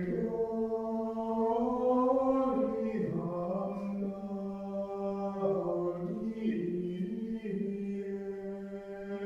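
A slow sung chant: a single melodic line of long held notes stepping from pitch to pitch, growing a little quieter near the end.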